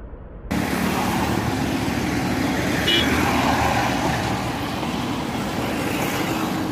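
Road traffic going past: engine hum and tyre noise from a small pickup truck and motorcycles. It starts loud and sudden about half a second in, with a short horn toot about three seconds in.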